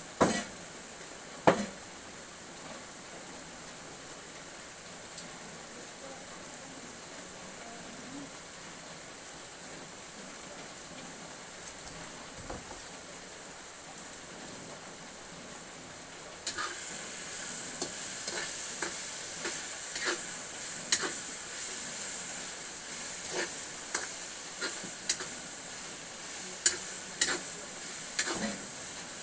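Frying in a wok over a wood fire: a couple of sharp knocks near the start and a low steady hiss, then about halfway in a loud sizzle starts abruptly. A metal utensil scrapes and clinks against the wok many times as the food is stirred.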